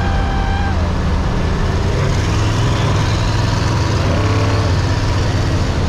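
Twin-turbo LS V8 vehicle cruising on the highway: steady engine drone and road noise.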